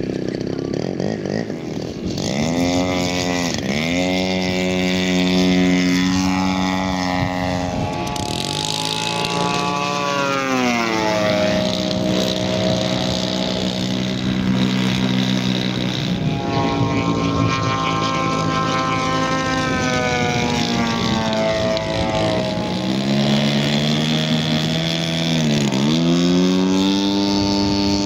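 Engine and propeller of a giant-scale RC model warbird, revved up and down several times. The pitch drops sharply and climbs back again and again, with steady stretches at high revs between, and it rises again near the end as the model rolls out for take-off.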